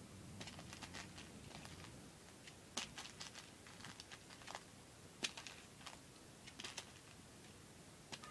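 Faint, scattered clicks and rattles of small plastic Perler beads being picked out by hand, with a few sharper taps.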